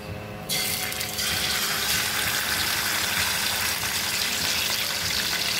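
A fish steak laid into hot oil in a wok: the oil starts sizzling loudly about half a second in and keeps frying steadily.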